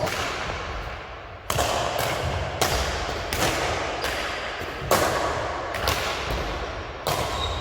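A series of six sharp bangs or pops, irregularly spaced roughly a second apart, each trailing off briefly.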